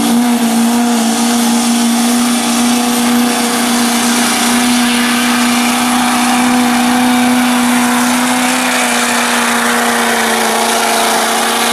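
Chevrolet Silverado's Duramax diesel V8 running at full throttle under heavy load while pulling a weight-transfer sled, its engine note held at a steady high pitch.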